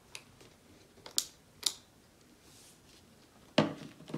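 Two quick squirts from a lotion pump bottle, sharp clicks about half a second apart. About three and a half seconds in, a knock as the bottle is set down on the table.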